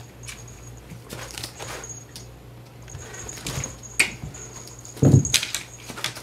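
Cats leaping, landing and scampering on a carpeted floor while chasing a wand toy: soft paw patter and thuds, with a sharp knock about four seconds in and the loudest thud about five seconds in.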